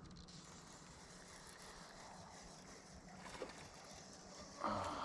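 Faint water sounds around a small fishing boat, under a low steady hum, with a brief louder rush near the end.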